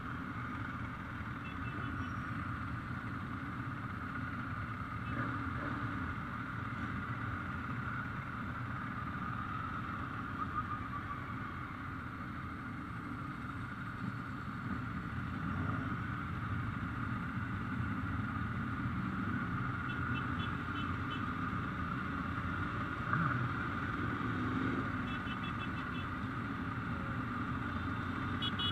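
Ducati motorcycle engines running steadily, a continuous din without sharp revs or bangs.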